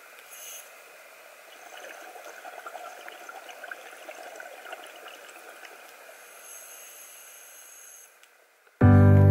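Underwater ambience picked up through a camera housing: a steady hiss with faint crackling and bubbling that swells a little in the middle. Piano music cuts in loudly near the end.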